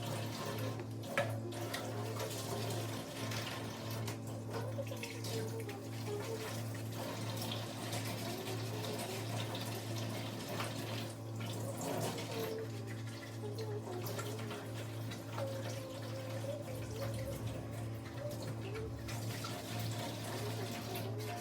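Water running from a kitchen tap into a sink, with a few light knocks, over a steady low hum.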